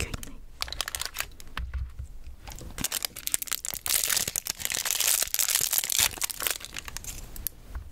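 Crinkling and tearing of a thin clear plastic wrapper as a small plastic spoon is unwrapped close to the microphone. Scattered crackles at first, growing to dense, loud crinkling in the middle.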